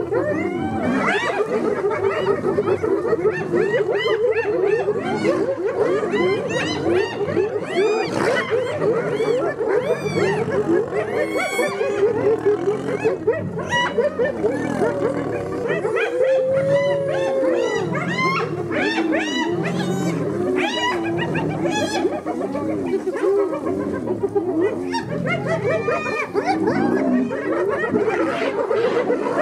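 A pack of spotted hyenas giggling and whooping in a constant overlapping din, with lions growling low beneath, as the two compete at a Cape buffalo kill.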